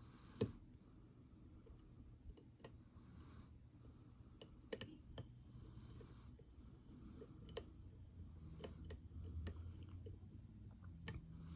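Lock pick and tension wrench working the pins of a pin-tumbler challenge lock: scattered small, sharp metallic clicks, a few of them louder, as pins are lifted and set.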